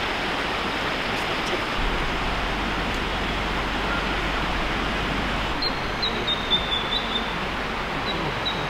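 Creek water flowing over rocks: a steady, even rushing hiss.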